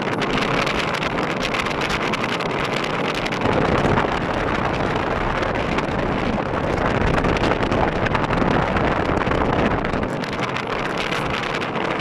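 Steady wind rush on the microphone over the tyre and road noise of a car driving at speed.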